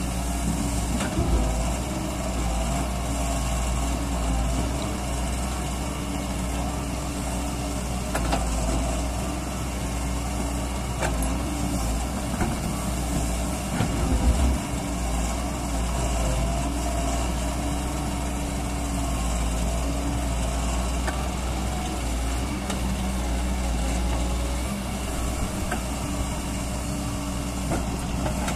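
Doosan DX140W wheeled excavator's diesel engine running steadily while the machine digs, its pitch shifting a little as the hydraulics work. A few short knocks sound over it, the loudest about 14 seconds in.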